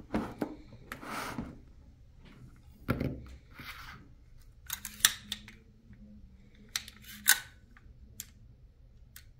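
Desert Eagle pistol being handled: scattered sharp metallic clicks and clacks of its steel parts, loudest about five and seven seconds in. A dull thump comes about three seconds in. Short rustling and knocks of a hard plastic gun case come near the start.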